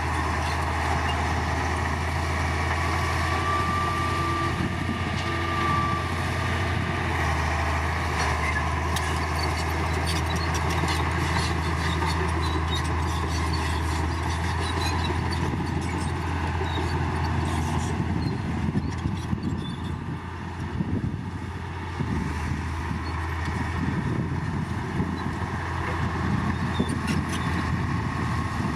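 Heavy diesel earthmoving machinery running steadily, a low engine drone with scattered clanks and knocks.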